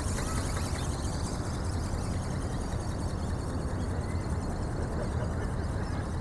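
Steady wind rumble buffeting the microphone: a low, even noise with no rhythm.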